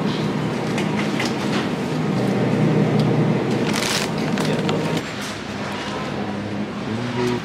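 Wire shopping cart rolling on a store floor with a steady rumble and rattle. A short crinkle of plastic-wrapped packaging comes about four seconds in as a pack is set in the basket.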